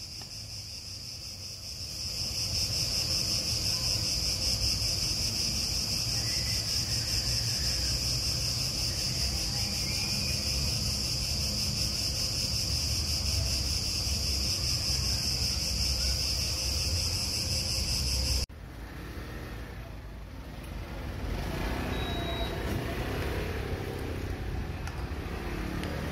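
A steady, high-pitched chorus of crickets over a low rumble of traffic. About two-thirds through it cuts off abruptly, and a rustling noise that slowly gets louder takes over, with the traffic rumble still under it.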